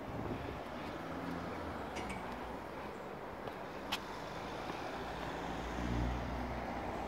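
Outdoor town ambience of road traffic, with a low rumble that swells near the end as a vehicle passes. A single sharp click about four seconds in.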